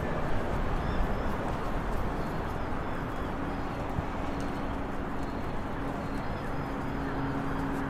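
Open-air ambience: a rumble of wind noise on the microphone, with repeated faint high bird chirps and a steady low hum that comes in about three seconds in.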